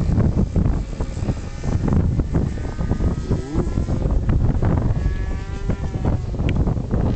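Strong wind buffeting the microphone, with the whine of a model aircraft's engine and propeller coming through as a steady pitched tone, about three seconds in and again around five to six seconds.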